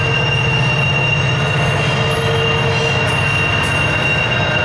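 Double-stack intermodal well cars rolling slowly around a sharp curve, with a steady low rumble. Over it runs one steady high-pitched squeal from wheel flanges grinding against the rail on the curve.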